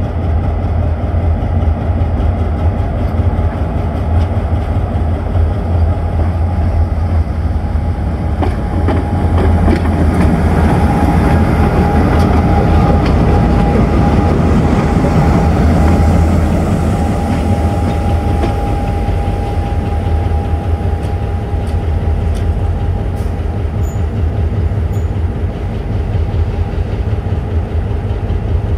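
Diesel locomotive of a passenger train running with a steady low engine hum. From about ten seconds in, the sound swells for several seconds with rail and wheel noise and a thin steady whine, then eases back to the engine hum.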